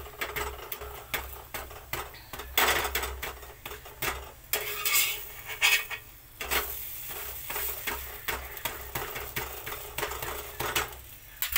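Flat metal spatula scraping, pressing and knocking an aloo paratha on a hot tawa, with repeated clicks and longer scrapes of metal on the griddle. Underneath is a light sizzle of the paratha frying.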